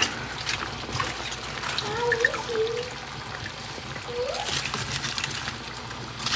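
A pot of beef bone broth bubbling at a boil, with many small scattered pops.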